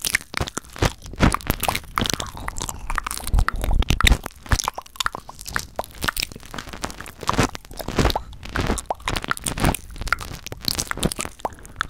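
Close-miked ASMR mouth sounds: a fast, dense run of wet clicks, pops and smacks of the tongue and lips.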